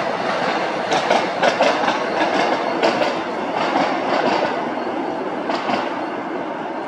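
MBTA commuter rail train of bi-level coaches passing: a steady rumble of wheels on the track with sharp clacks over the rail joints, growing a little fainter near the end.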